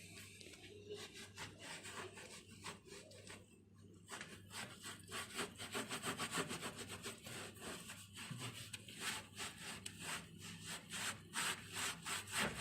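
Quick, regular back-and-forth strokes of something rubbing the surface of a microwave oven as it is wiped and scrubbed clean, about three strokes a second. The strokes get louder and faster about a third of the way in.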